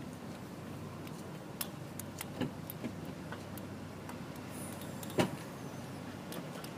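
Scattered light clicks of a lock pick and tension wrench working the pins inside a lock, the loudest about five seconds in, over a steady low background hum.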